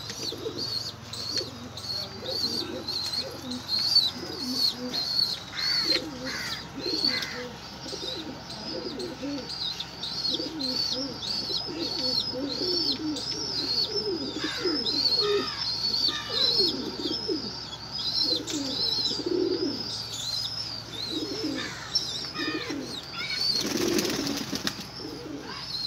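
A flock of domestic pigeons cooing continuously over one another, with a high chirp repeating two or three times a second throughout. Near the end comes a short burst of wing flapping.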